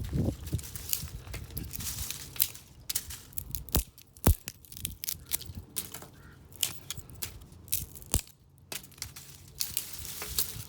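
Wooden branches being broken: an irregular run of sharp cracks and crackling snaps. The loudest is a single sharp snap about four seconds in.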